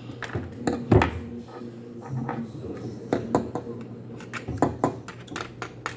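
Irregular clicking and clattering of eating utensils against dishes during a sushi meal: a string of short knocks at uneven spacing, loudest about a second in.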